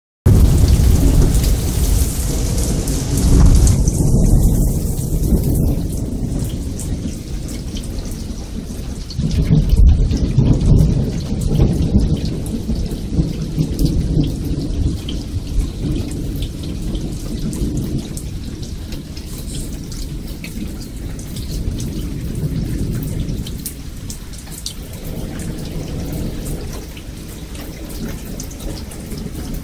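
Rolling thunder over falling rain. The rumble swells about three seconds in and most strongly about ten seconds in, then slowly dies away while the rain goes on.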